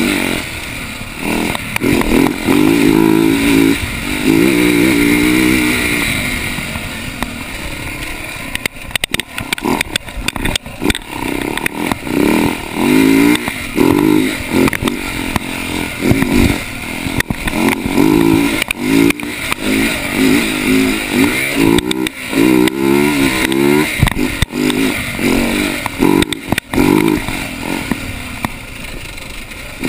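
Husaberg dirt bike engine heard close from on the bike, revving up and down again and again as it is ridden over a rough trail. It eases off for a few seconds about a quarter of the way in, and sharp clatters and knocks from the bike over bumps come through several times.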